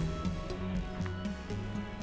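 Background music with a low bass line and light, fairly regular clicks.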